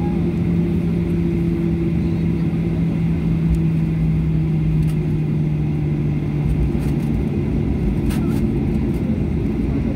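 Airliner engines and taxiing rumble heard inside the passenger cabin: a steady low hum with a droning tone that drops slightly in pitch about six seconds in.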